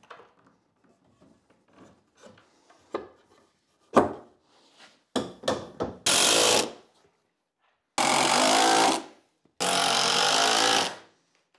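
A few knocks, then a cordless drill-driver driving screws into the wooden workbench frame in three runs: a short one, then two of a second or more each.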